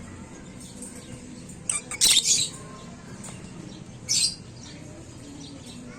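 Pet lovebirds making sharp, high-pitched chirps: a short one just before two seconds in, a longer burst right after, and another about four seconds in.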